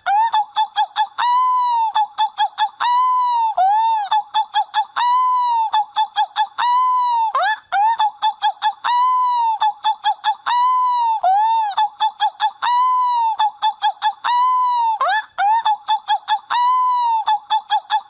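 Seagull calling over and over: a long drawn-out call followed by a quick run of short yelping calls, the same pattern repeating about every two seconds.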